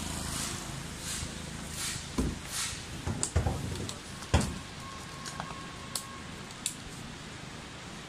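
A motorbike engine running past on the road fades over the first couple of seconds. Then come several dull knocks and thumps, the loudest about four seconds in, as an inflatable rubber raft is handled and pumped up with a hand pump, and a short high beep sounds a little past the middle.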